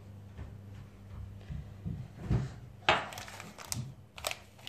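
Kitchen handling noises: a few soft knocks, then a sharp clack about three seconds in as a drinking glass is set down on a granite countertop, followed by two lighter ticks.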